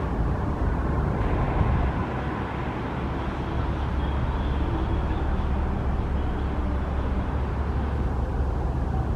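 Steady rumble of a jet airliner's engines at a distance, with a faint high whine about halfway through.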